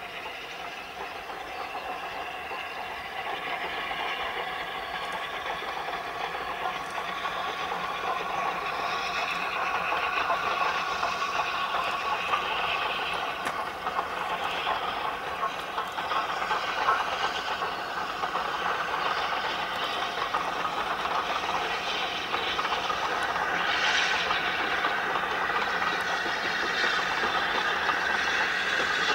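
LNER A4 Pacific No. 4464 Bittern, a three-cylinder steam locomotive, working a passenger train past, its steam exhaust and rolling noise growing louder over the first several seconds as it draws nearer, then holding steady.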